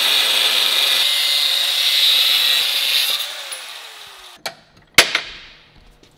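Angle grinder with a cutoff wheel cutting into 1.5-inch steel tube to hand-cope it, a steady high grinding hiss. About three seconds in it comes off the cut and winds down with a falling whine. Two sharp knocks follow, half a second apart, the second the loudest sound here.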